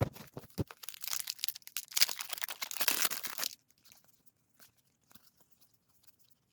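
A foil Pokémon card booster pack wrapper being torn open and crinkled: a dense crackling that stops about three and a half seconds in.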